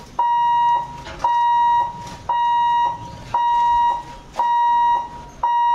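Railway level-crossing warning hooter sounding a steady, high buzzing tone in on-off pulses, about one a second: the warning that the barrier booms are about to come down for an approaching train.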